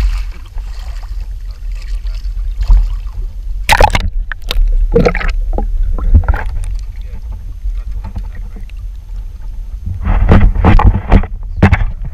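Water splashing and sloshing against a boat's side as a hooked blue shark thrashes at the surface, over a steady low rumble of water and wind on the camera. The loudest splashes come in bursts about four seconds in and again near the end.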